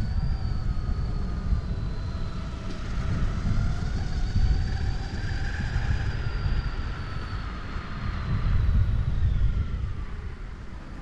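Skateboard wheels rolling on pavement with wind buffeting the microphone, a steady low rumble, with a fainter whine that slowly rises and falls in pitch and fades near the end.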